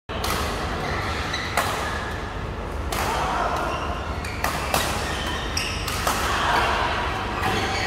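Badminton rackets striking shuttlecocks, several sharp hits at irregular intervals a second or so apart, ringing on in a large hall, over a steady low hum and players' voices.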